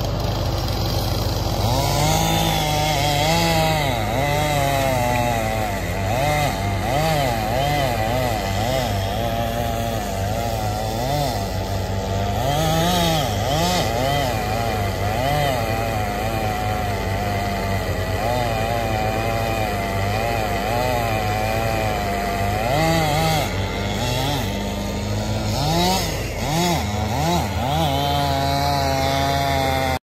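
Two-stroke chainsaw cutting into a tree trunk, its engine pitch rising and falling over and over as the chain bites into the wood and frees up again. A steady low engine hum runs underneath and drops away near the end.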